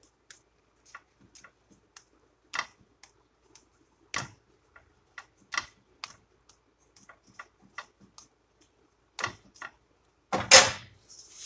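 Sparse light clicks and taps of a spatula pressing a quesadilla in a frying pan, with a louder half-second clatter near the end.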